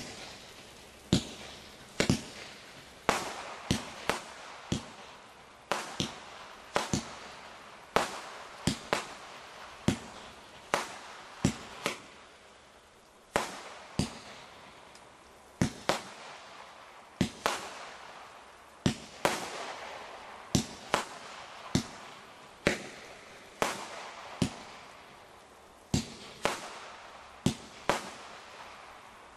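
A 19-shot Shogun fireworks multishot cake firing: a long, irregular series of sharp bangs, one or two a second, from the launch of each shot and the burst of its break.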